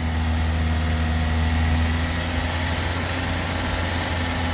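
Car engine idling steadily while it warms up, waiting for the radiator fan to switch on.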